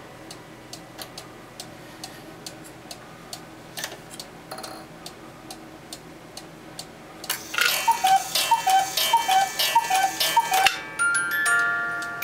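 Chalet-style cuckoo clock ticking steadily. About seven seconds in, it sounds a run of cuckoo calls with the clatter of its striking mechanism for about three seconds. Near the end, its music box starts a tinkling tune.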